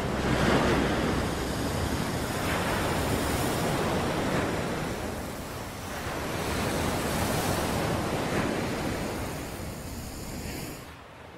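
Sea waves washing up and back over a pebble beach, the surf swelling in two long surges and fading near the end.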